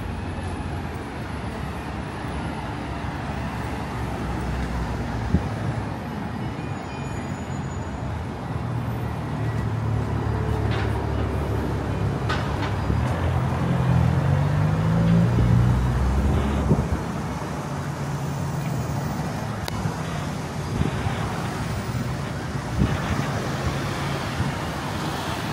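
City street traffic: a steady hum of passing road vehicles, with a heavy vehicle's engine growing louder in the middle and dropping away about two-thirds of the way through.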